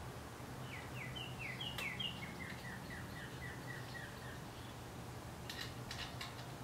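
A songbird sings a run of about a dozen quick downward-slurred chirps, about four a second, each a little lower than the last. A few light clicks follow near the end, over a low steady hum.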